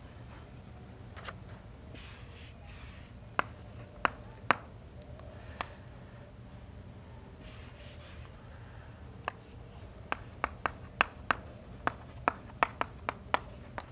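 Chalk writing on a blackboard: scratchy strokes and sharp taps of the chalk against the board, with a quicker run of taps in the last few seconds.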